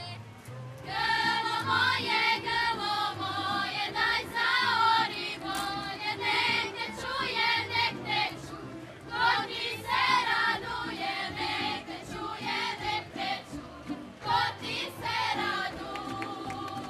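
Women and girls of a folk ensemble singing a traditional Croatian folk song of the Sisak Posavina region together, in short phrases with brief breaks between them.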